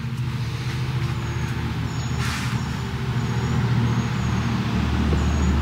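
Steady low mechanical hum that grows stronger near the end, with a short rush of noise about two seconds in and a few faint high squeaks.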